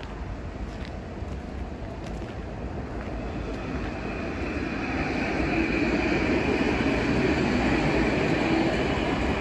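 A rail vehicle approaching and passing, its rolling rumble with a higher hiss above it growing steadily louder over several seconds.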